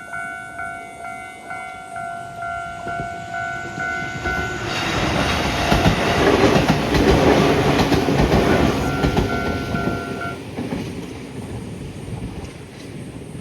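Japanese level-crossing alarm bell ringing with an electronic clang about twice a second, as a Sangi Line train passes loudly over the crossing about five seconds in. The bell stops about ten seconds in and the train's sound fades away.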